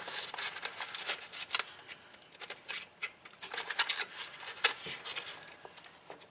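Hands rummaging through an ATV's wiring harness, giving an irregular run of rustles and sharp plastic clicks as the wires and connectors are moved about. The clicks are busiest in the first half and thin out toward the end.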